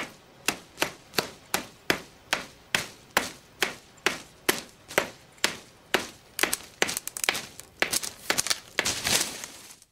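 A hand-held flaked stone tool chopping a thin sapling with repeated sharp blows, about two a second, splintering the wood. Near the end the blows come faster and run together, then stop abruptly.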